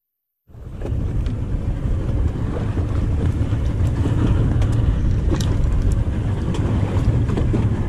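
Wind buffeting an action camera's microphone on an open boat at sea: a steady low rumble that starts abruptly about half a second in, with a few light clicks or knocks on top.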